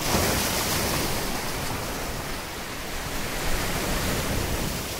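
Sea waves breaking and washing onto the shore, a steady rushing noise of surf.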